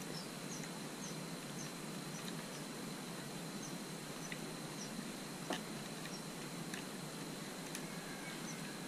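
Quiet outdoor background of insects: a steady high-pitched drone with small regular chirps. A few faint clicks come from a screwdriver working loose the battery's negative terminal, the loudest about halfway through.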